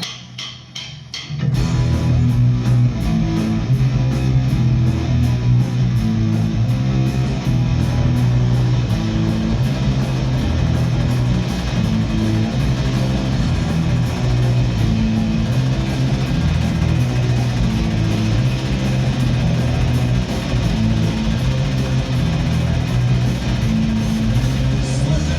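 Rock music with electric guitar and bass over a steady beat, kicking in suddenly about a second and a half in.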